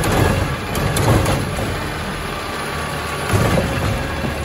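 Garbage truck's diesel engine running steadily while its Bridgeport Ranger automated side-loader arm dumps a wheeled cart and lowers it back down. There are a few sharp knocks in the first second or so and a louder clatter about three seconds in.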